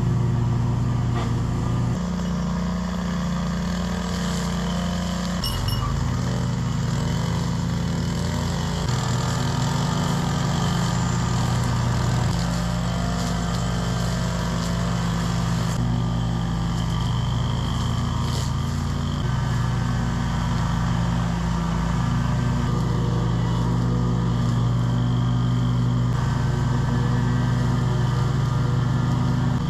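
Scag V-Ride II stand-on mower's engine running steadily while mowing grass, its pitch shifting slightly a few times.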